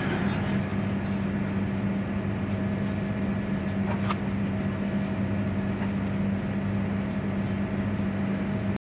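Steady machine hum of commercial kitchen equipment, with a faint tap about four seconds in; the hum cuts off suddenly near the end.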